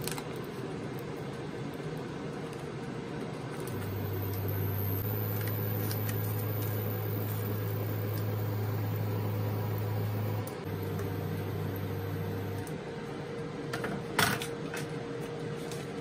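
Steady electrical hum of a kitchen appliance. A deeper hum switches on about four seconds in and cuts out a couple of seconds before a single sharp knock near the end.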